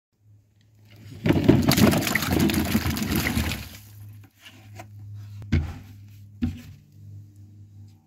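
Apples tipped from a plastic container into a basin of water: a loud rush of splashing for a couple of seconds, then two sharp knocks.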